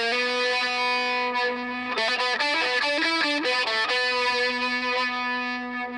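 Electric guitar played through distortion: a long sustained note, a quick run of changing notes in the middle, then another held note.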